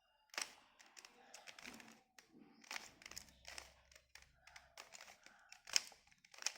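Plastic Rubik's cube being turned by hand: an irregular run of clicks and rasping scrapes as its layers rotate.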